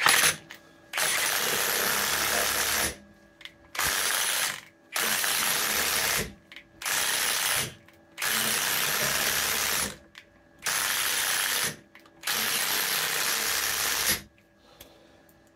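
Cordless impact wrench hammering in about seven bursts of one to two seconds each. It is driving a bolt against nuts welded onto a corroded, seized rear wheel bearing hub to force the hub out.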